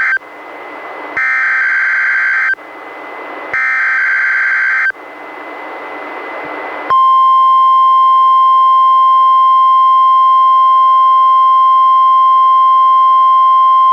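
NOAA Weather Radio SAME header: three buzzy digital data bursts, each about a second and a half, with radio hiss between them. About 7 seconds in, the steady 1050 Hz warning alarm tone starts and holds. This is the broadcast's weekly test of the receivers' alert alarm.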